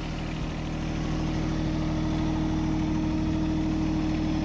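Vehicle engine running steadily at low speed with an even hum, getting a little louder about a second in, as the vehicle's tires pack the garden soil into rows.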